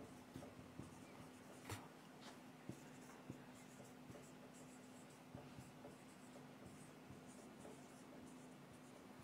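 Faint squeaks and scratches of a marker pen writing on a whiteboard in short strokes, mostly in the second half, over a low steady hum.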